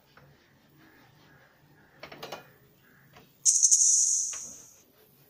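Rolling pin clacking against the wooden board a few times about two seconds in, as dough is rolled out. Then a sudden loud hiss starts about three and a half seconds in and fades out over a second and a half.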